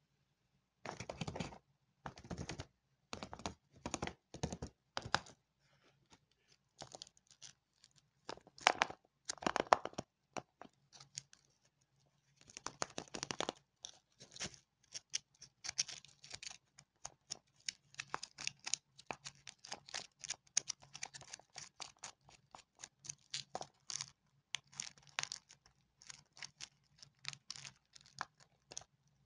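Foil wrapper of a Kinder chocolate egg being crinkled and peeled open by hand, in short crackling and tearing bursts with silent gaps between them.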